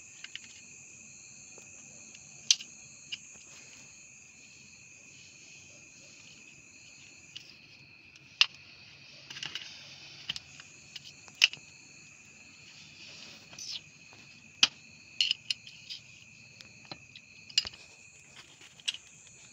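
Crickets trilling steadily, with a dozen or so sharp metallic clicks and knocks scattered through it as the tractor's brake disc and actuator parts are handled.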